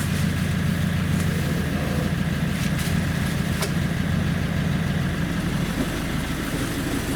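Iveco Daily van's diesel engine idling steadily after standing unused for ten months.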